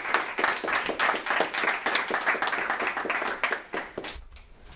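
Audience clapping, a dense patter of hand claps that thins and dies away about four seconds in.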